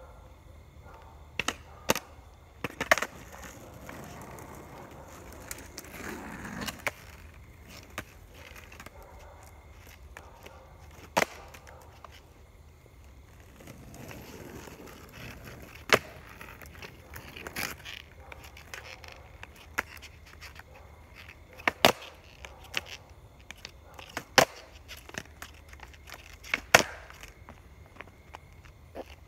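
Skateboard on an asphalt path: wheels rolling in stretches, with about a dozen sharp clacks of the board being popped, landing and clattering to the ground.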